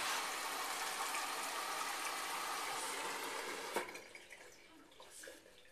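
Bosch Classix 1200 washing machine drawing in water through its inlet valve at the start of a wash cycle: a steady rush of water that stops suddenly about four seconds in.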